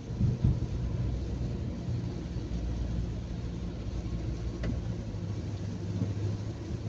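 Road vehicle driving along: a low, steady rumble of engine and tyres, with a short knock about half a second in.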